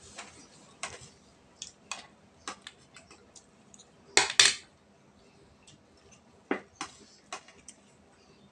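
Spoons and forks clinking and scraping on plates during a meal, in scattered short clicks, with a louder double clatter about four seconds in.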